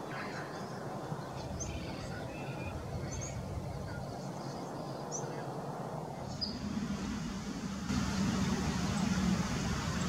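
Outdoor background of steady low traffic rumble with a few short, high bird chirps scattered through it; about eight seconds in the rumble grows louder.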